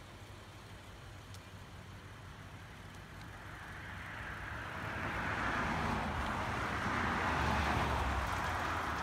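A car passing on the highway, its tyre and engine noise building from about three seconds in and loudest in the second half.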